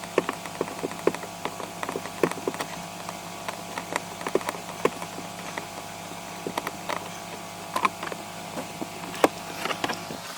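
Irregular light clicks and knocks of hands and a screwdriver working on plastic interior trim while it is unscrewed and pulled loose, over a steady hum.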